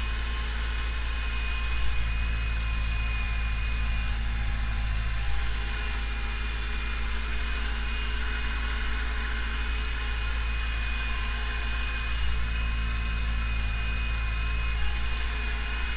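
Pronar 82SA tractor's diesel engine, heard from inside the cab, running steadily under load while pulling a seedbed cultivator across the field.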